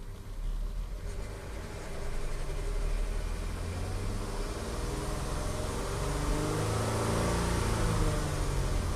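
Audi A3 3.2's VR6 engine running with a clacking rattle from the timing-chain case, which the owner puts down to worn timing chains, tensioners and guides, or possibly faulty camshaft adjusters. About halfway through it is revved up once and settles back down.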